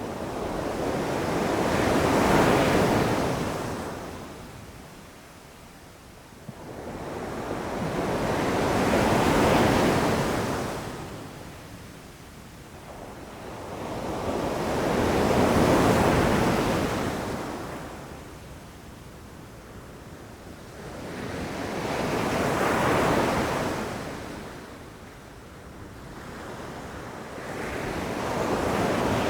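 Ocean waves rushing in and breaking, each one swelling up to a loud crash and then washing back. The surges come about every seven seconds: four full waves, with a fifth building near the end.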